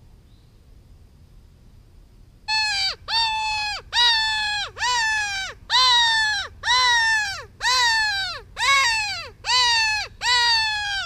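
Hand-held predator mouth call blown for coyotes: a series of about ten loud cries, roughly one a second, starting a couple of seconds in, each note held and then sliding down in pitch at its end.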